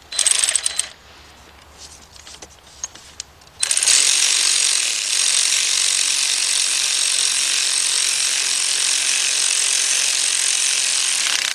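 Power ratchet running a bolt in: a brief run at the start, a pause with a few light clicks, then about eight seconds of steady running that stops suddenly.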